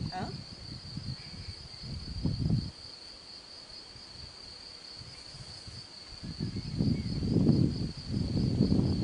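A continuous high-pitched insect trill, such as a cricket's, holding one steady pitch. Bursts of low rumbling noise come and go over it, loudest in the last three seconds.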